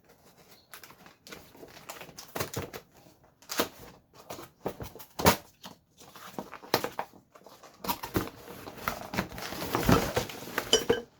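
Lamp parts and packaging being handled while unboxing: scattered clicks and knocks of parts set down and moved, turning into denser rustling of packaging over the last few seconds.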